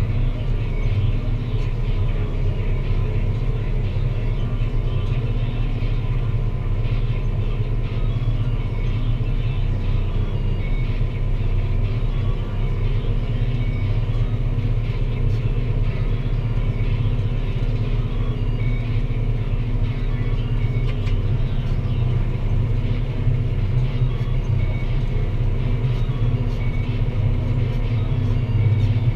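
Deutz-Fahr Agrotron 165 MK3 tractor's six-cylinder diesel engine running steadily under load while pulling a plough: a constant low drone.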